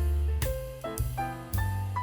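Background music: a piano or keyboard melody of stepped, held notes over a deep bass line and drums keeping a steady beat.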